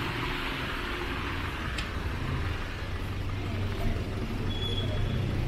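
Road traffic: vehicle engines running with a steady low rumble and a hiss, a faint click about two seconds in, and a short high tone near the end.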